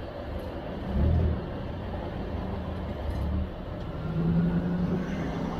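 City street traffic: passing cars with a low engine rumble, swelling about a second in and again from about four seconds.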